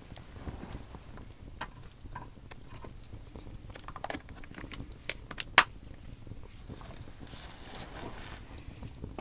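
Wood campfire crackling with scattered small pops and one sharp, loud snap a little past halfway. A soft hiss rises for a second or so near the end.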